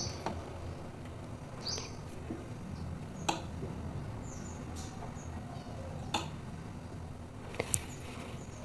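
Light scratching of a pen drawing lines along a plastic ruler on paper, with a handful of short clicks and taps as the ruler is set down and shifted, over a low steady hum.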